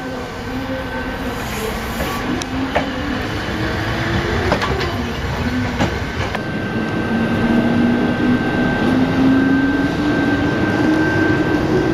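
Electric train running with a loud rumble and a motor whine that dips and then rises steadily through the second half as the train picks up speed. Occasional sharp clicks of wheels on rail joints are heard in the first half.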